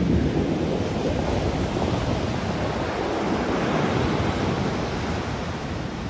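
Ocean surf breaking and foaming up onto a sandy beach: a continuous rush of waves, loudest as a wave lands at the start.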